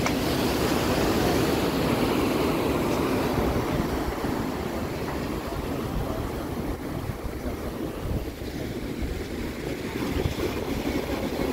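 Sea waves breaking and washing up the sand in a steady rushing surf noise, easing a little midway and building again near the end.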